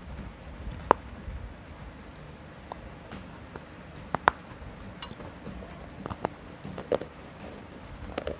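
Close-miked eating: sharp, scattered crunchy bites and mouth clicks about a second or two apart, with soft chewing between.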